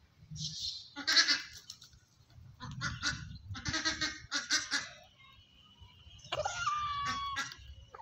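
Poultry calling: a series of short, harsh squawks over the first five seconds, then a longer, steady-pitched call about six seconds in.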